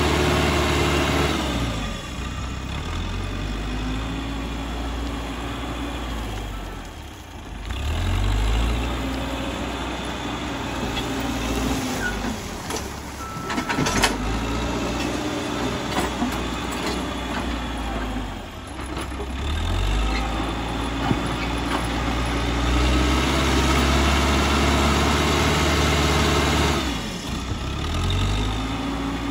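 Caterpillar 434E backhoe loader's diesel engine working under load while it pushes and tips soil with its front bucket, its speed rising and falling in repeated surges. There is a single sharp knock about halfway through.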